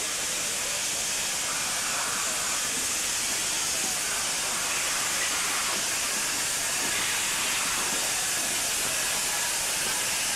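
Steady hiss of steam escaping from a standing steam locomotive.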